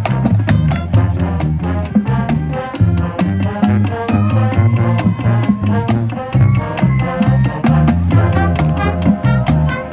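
A marching band playing: brass with a steady percussion beat and a strong low bass line.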